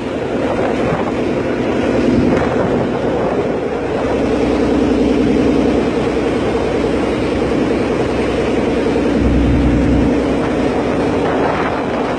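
A ferry's engine drones steadily, with wind buffeting the microphone in gusts, loudest about nine seconds in.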